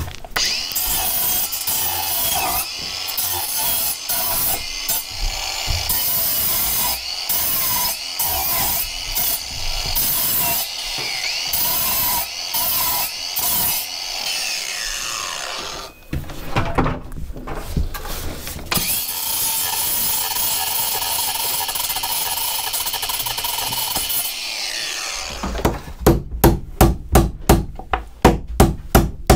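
Cordless angle grinder with a cutting disc grinding into wooden boat framing, running in long stretches with short breaks and a pause partway through. Near the end it gives way to quick hammer blows, about three a second.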